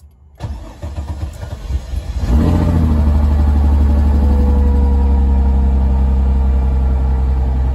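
A flood-damaged 2004 Mercedes-Benz SLK 320's 3.2-litre V6 being cranked by the starter for about two seconds, then catching and settling into steady running.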